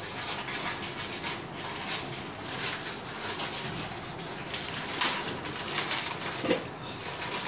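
Crinkly rustling and scattered clicks of a biscuit packet being handled, with one sharper click about five seconds in.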